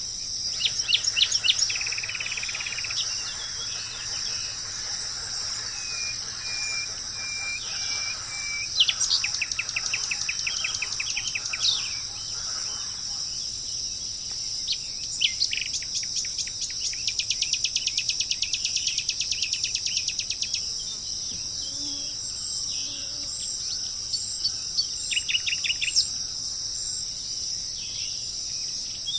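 Songbirds singing over a steady, high-pitched insect chorus. The birdsong includes a run of short, evenly repeated whistles and several fast trills.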